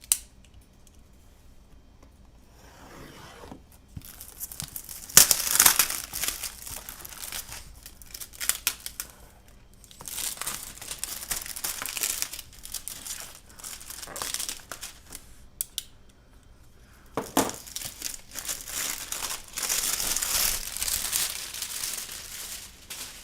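Plastic shrink-wrap being torn and crumpled off a keyboard box, in irregular crinkling bursts that start a few seconds in and come and go with short pauses.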